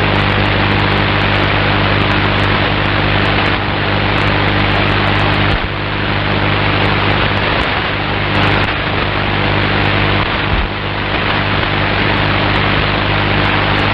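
Shortwave radio receiver hiss and static, a steady wash of band noise with a low, even hum running under it.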